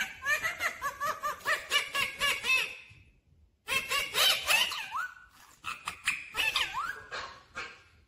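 Rose-ringed parakeet chattering in quick strings of short rising-and-falling chirps. It pauses briefly about three seconds in, then chatters again with a few longer gliding calls.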